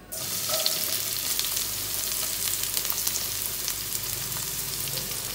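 Sliced shallots dropped into hot oil in a granite-coated wok, sizzling and crackling steadily as they start to sauté. The sizzle starts suddenly as they go in, with a spatula scraping them off a cutting board.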